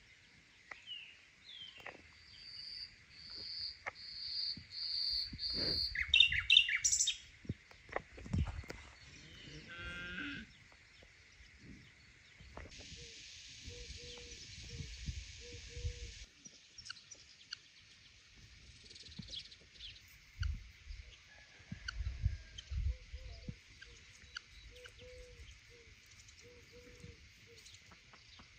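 Birds calling in the open air: a run of five quick high notes a few seconds in, then louder calls and a short trill. Low, short calls repeat in small sets later on, among scattered knocks.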